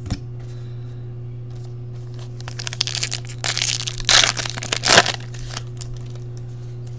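Foil wrapper of a trading-card pack being torn open and crinkled by hand, in a run of crackling bursts from about two and a half to five seconds in, loudest near the end of that run.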